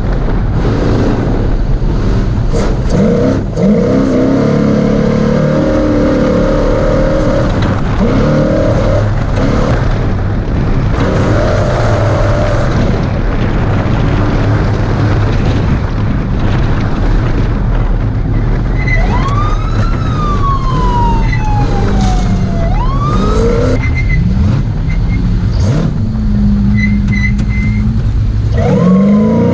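Ford Ranger desert race truck's engine running hard, its pitch climbing and dropping again and again as the throttle opens and closes, with knocks and rattles from the rough course. Between about two-thirds and four-fifths of the way through, a high whine sweeps up and down several times.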